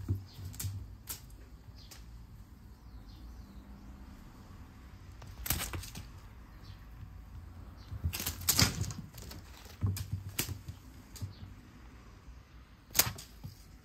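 Scattered thumps and taps of a cat jumping, landing and pattering on a wooden floor while playing, with a few sharper knocks, the last one near the end.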